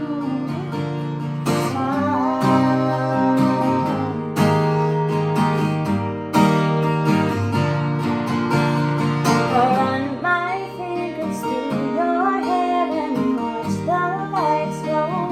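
Acoustic guitar strumming chords through an instrumental break in a pop-country song, with a sliding melody line over it in the second half.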